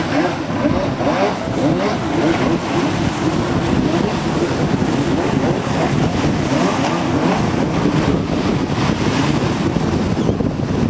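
Engines of several racing jet skis running hard, overlapping, their pitch wavering up and down as the throttles change.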